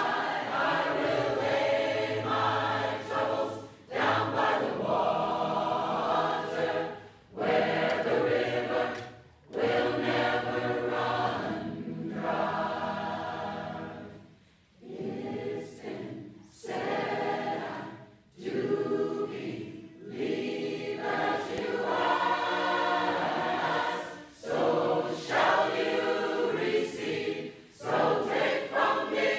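Large mixed choir of men's and women's voices singing together, in sung phrases of a few seconds each separated by short pauses.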